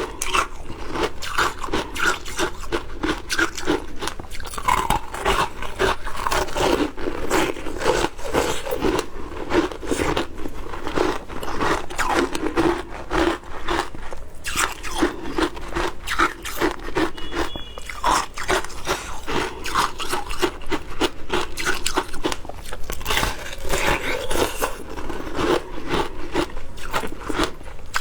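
Shaved ice being bitten and chewed: a steady run of crunching and crackling.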